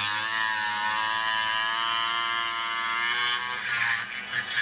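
Proxxon FBS 240/E mini rotary tool running at a raised speed, its small bit cutting into white plastic. The motor's high whine sags and wavers in pitch as the bit bites, at a speed the user thinks may melt the plastic.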